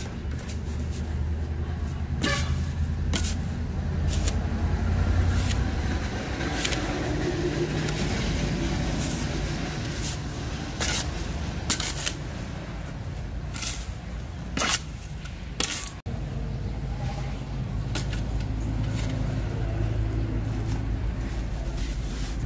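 A small shovel scraping and knocking in a plastic tub as a cement and sand mix is stirred, in irregular strokes. Under it runs a steady low motor hum, like an engine running.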